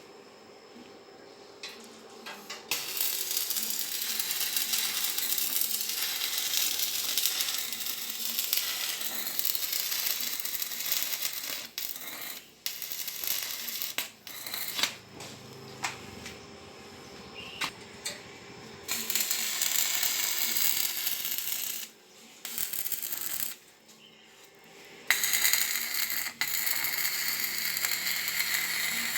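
Tool noise from assembling a homemade circular saw: long spells of steady, grainy mechanical noise, about eight seconds, then three, then four, with quieter gaps holding scattered clicks and knocks.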